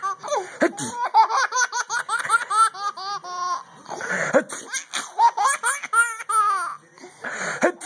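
Baby laughing in quick high-pitched bursts, about five a second, broken twice by a short breathy gasp, about four seconds in and near the end.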